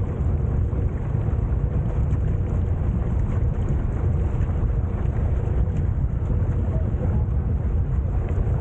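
Steady low rumble of a motorized outrigger boat under way: its engine running at an even speed, mixed with wind buffeting the microphone and water noise close to the surface.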